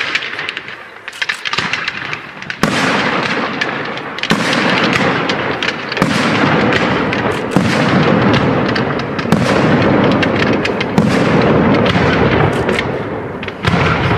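Fireworks display: a quick run of sharp crackling pops, then about two and a half seconds in a dense barrage of shell bursts starts, with fresh loud bursts every second or two over continuous crackle and rumble.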